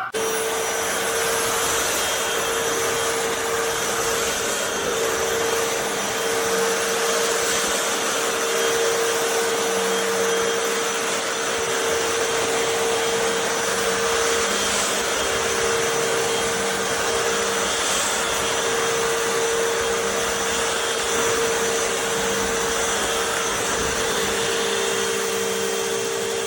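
Hoover FloorMate Deluxe hard-floor cleaner's motor running steadily with a constant whine, its motor bearings failed, which the owner takes as the cause of the noise.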